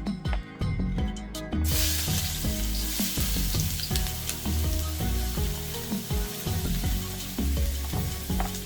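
Garlic sautéing in hot oil: a sizzle starts suddenly about two seconds in and keeps going. Background music plays underneath.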